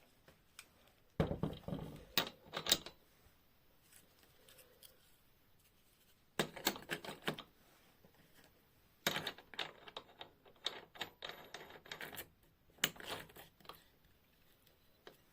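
Bursts of rapid clicking and scraping from hand work on a knife, four times, with quiet between.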